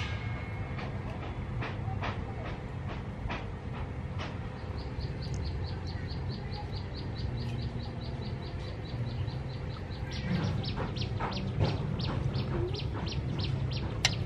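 A bird calling in short repeated chirps, quickening to a fast even run about five seconds in, over a steady low rumble of outdoor background noise.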